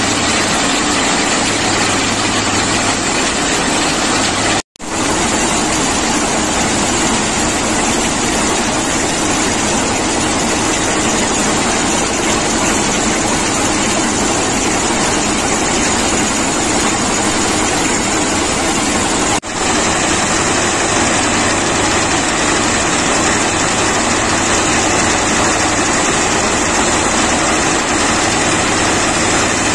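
Plasser RM80-92U ballast cleaning machine at work, its engines and excavating gear running loudly and steadily as it digs out and screens track ballast. The sound cuts out for an instant about five seconds in and dips briefly again near twenty seconds.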